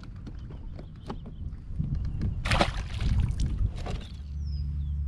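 Knocks and a splash of water as a largemouth bass is handled and let go over the side of a kayak, with water sloshing against the hull. A steady low hum starts about four seconds in, and a bird chirps a few times near the end.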